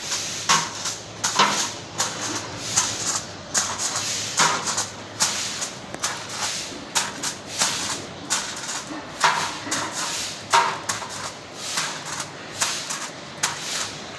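A metal skewer stabbing holes through aluminium foil lining the bottom of a large metal cooking pot: a string of sharp, irregular taps with a crackle of foil at each stab, roughly one or two a second.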